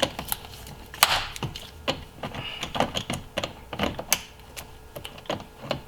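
Irregular clicks and light knocks of hand tools and plastic and metal engine parts being handled in a car's engine bay, the loudest about a second in and about four seconds in.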